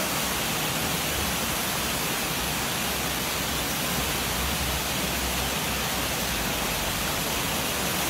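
Steady rush of shallow river water flowing past, an even hiss with a low rumble beneath.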